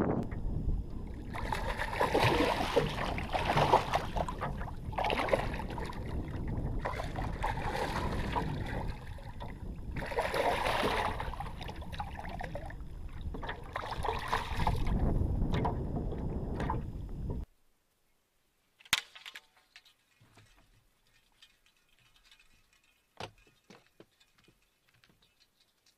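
Wind buffeting a boat-mounted action camera's microphone, with choppy water slapping and splashing against the small boat's hull in uneven surges. It cuts off suddenly about two-thirds of the way through, leaving near silence with a few faint clicks.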